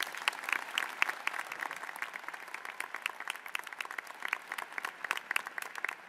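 Audience applauding: many people clapping at once, a steady dense patter of claps.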